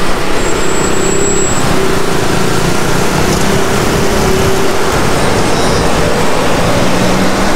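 Road traffic at a junction: a minivan, motor scooters and an SUV driving past, their engines and tyres making a steady loud rush with engine hums coming and going.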